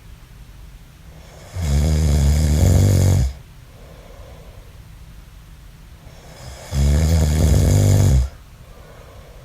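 A man snoring in his sleep: two long, low, buzzing snores about five seconds apart, with much quieter breathing between them.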